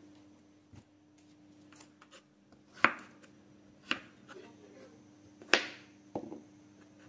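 Chef's knife chopping raw pumpkin on a wooden cutting board: three sharp knocks over a few seconds, the last the loudest, then a lighter knock.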